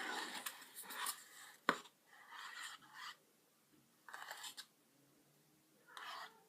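Scratchy, hissy handling noises from working with slime ingredients on a plate: a rough crackle at first, one sharp click, then three short bursts with quiet between.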